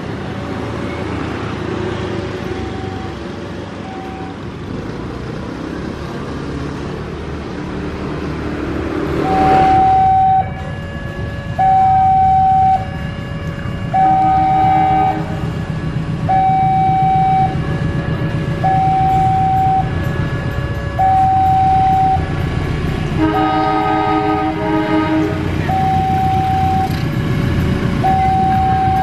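Railway level-crossing warning alarm sounding a repeated tone, about a second on and a second off, fainter at first and loud from about a third of the way in. Beneath it a diesel locomotive's engine rumble builds as the train approaches the crossing.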